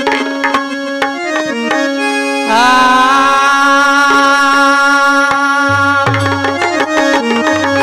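Live folk-theatre accompaniment: hand-drum strokes over steady held keyboard notes. About two and a half seconds in, a male singer comes in on a microphone with a long note that slides up at its start, and the drumming goes on under it.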